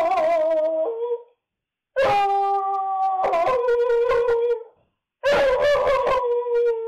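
Dog howling: three long drawn-out howls with short pauses between them. The first ends about a second in, the second runs from about two to four and a half seconds, and the third starts about five seconds in. Each howl steps down in pitch partway through.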